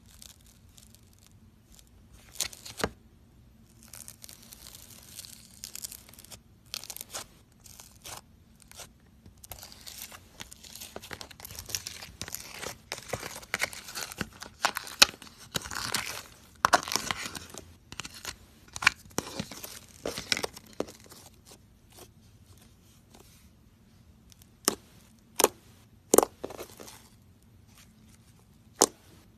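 Slime being squished and stretched by hand, with irregular sticky crackling and popping that grows dense through the middle, then thins to a few sharp separate pops near the end.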